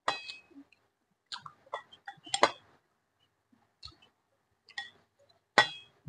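Eating sounds: scattered wet mouth clicks and chewing, with chopsticks clinking against the dishes, two sharper clinks that ring briefly, one at the very start and one about five and a half seconds in.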